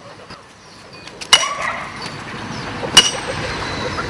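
Metal being struck twice, about a second and a half apart, each a sharp clink that rings briefly at a high pitch, over a steady outdoor hiss.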